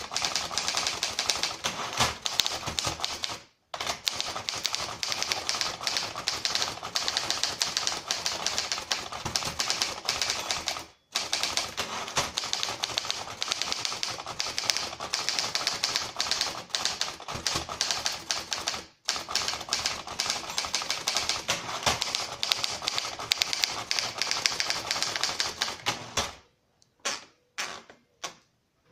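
1939 Triumph Standard 12 manual typewriter being typed on at a fast, steady pace, keys clacking densely. The typing breaks off briefly three times, stops about 26 seconds in, and a few single clicks follow.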